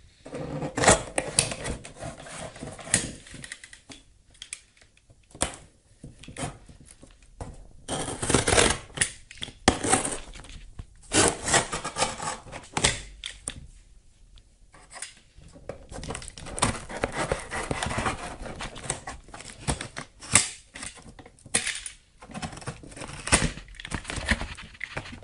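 Cardboard shipping box being pulled and torn open by hand, with irregular tearing, scraping and knocking of the cardboard. It comes in fits and starts with short pauses, as the box is awkward to get open.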